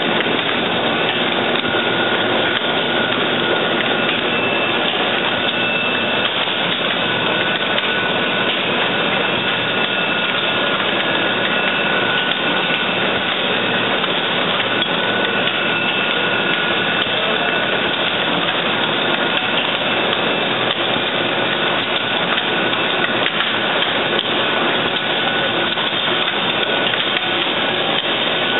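Automatic needle assembly machinery running: a steady, dense mechanical whir with faint high whines that come and go.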